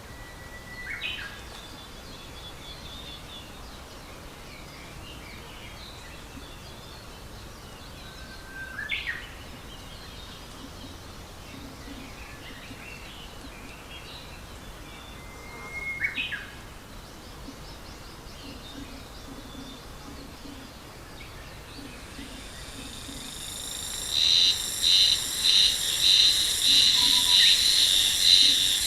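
A songbird sings three times, about seven seconds apart: each phrase a held whistle that sweeps sharply upward at its end. Near the end a shrill, pulsing insect chorus swells in and becomes louder than the bird.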